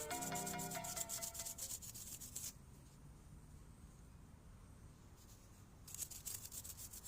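Quick back-and-forth rubbing strokes, hand sanding or scrubbing a Honda Vario 110's aluminium engine crankcase to polish it shiny. The rubbing stops for about three seconds midway, then starts again.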